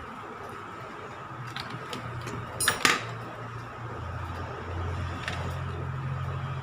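Small metallic clicks and taps from tool handling at a workbench, with a sharp double click about three seconds in, over a faint steady hum; a low rumble comes in during the second half.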